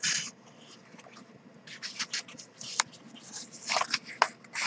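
Non-glossy paper pages of a photo book being handled and turned by hand: a run of short, irregular rustles and scrapes, busiest near the end.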